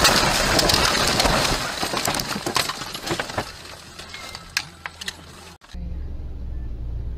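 A car crashing off the road through bushes and small trees: a loud rush of branches scraping and snapping against the body and windshield, with many sharp cracks and knocks, thinning to scattered ticks after about three seconds. Then an abrupt cut to a steady low engine and road rumble.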